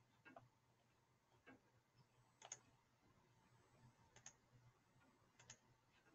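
Near silence broken by about five faint, sharp clicks spaced a second or so apart: computer mouse clicks.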